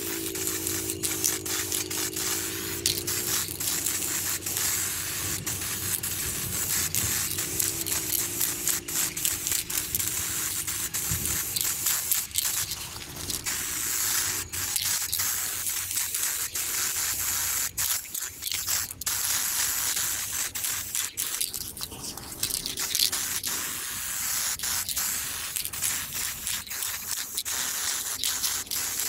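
Samurai 2K aerosol paint can spraying silver paint onto a wheel rim in many short bursts with brief breaks between them.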